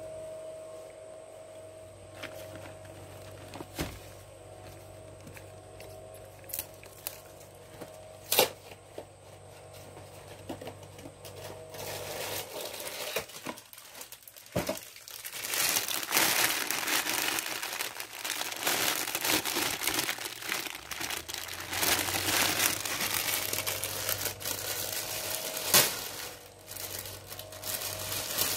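Moth ball box packaging being unpacked. First a few light taps over a faint steady hum, then, a little before halfway, loud continuous crinkling and crumpling of the packaging with some tearing.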